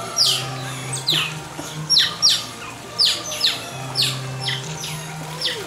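Asian small-clawed otters chirping: a rapid series of sharp, high-pitched calls, each falling in pitch, about two a second.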